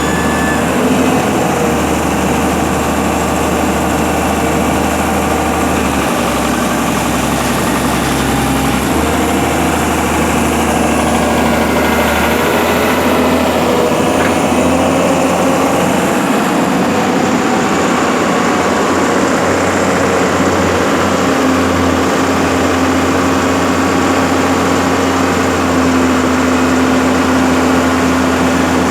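Heavy machine's engine running steadily, such as a mobile crane at work, with the low hum shifting a few times; a steady higher-pitched hum joins about two-thirds of the way through.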